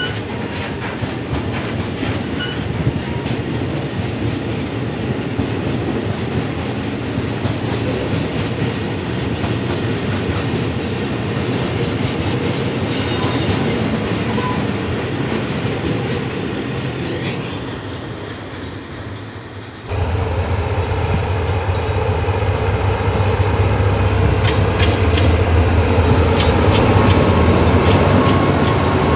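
Freight train of tank wagons rolling past with steady wheel-on-rail noise and clicking. About two-thirds of the way through it cuts sharply to a louder, close pass of two diesel-electric locomotives, an Alsthom and a GE unit, with a deep engine hum under the wheel noise.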